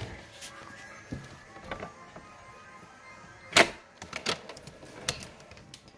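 Faint video game music with thin held tones during the first couple of seconds, under a series of knocks and clicks. The loudest is a sharp knock about three and a half seconds in.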